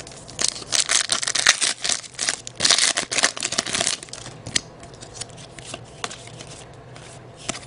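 Trading card pack being handled and opened: dense crinkly rustling and tearing of the wrapper for about four seconds, then a few light ticks as the cards are handled.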